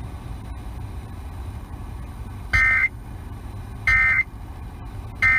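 Emergency Alert System end-of-message data bursts received over the radio: three short, buzzy digital SAME bursts about a second and a half apart, marking the end of the warning message.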